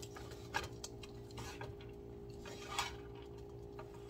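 Wooden spatula stirring and tossing fried rice in a large nonstick pan, with a few light scrapes and taps against the pan, over a steady low hum.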